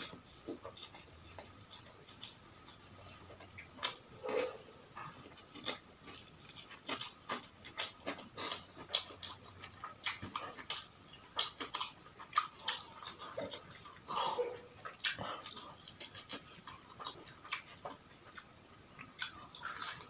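Close-miked eating sounds: a person chewing food, with irregular wet mouth smacks and crisp clicks throughout.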